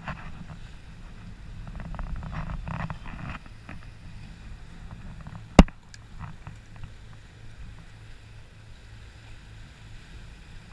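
Steady low rumble by the water, with light handling noises from the fishing rod and line in the first few seconds and one sharp click about five and a half seconds in.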